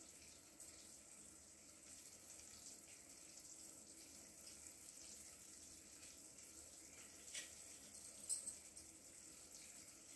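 Near silence: faint steady room hiss with a few soft light taps.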